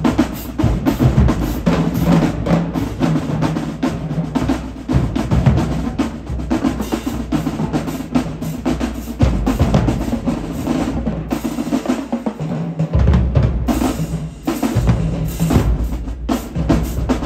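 Marching drum line playing a fast, dense rhythm on snare drums, bass drums and cymbals, with heavy bass-drum hits.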